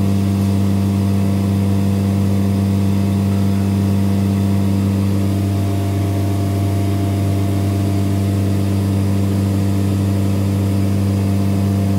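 Steady low hum of a Busch Mink claw vacuum pump running continuously, the pump that holds sheet down on the CNC router's vacuum table.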